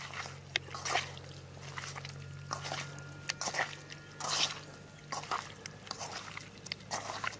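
Irregular wet splashes, drips and squelches, as of hands working food in water, over a low steady hum.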